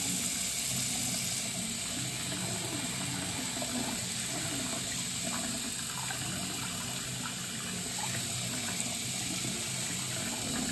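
Tap water running steadily from a sink faucet, splashing over a kitten and hands held under the stream and into the basin.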